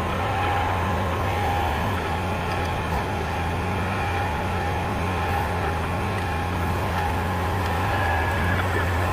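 Bobcat compact track loader's diesel engine running steadily under load, powering a mast-mounted hydraulic ground-screw driver that turns a solar-mount ground screw into the ground.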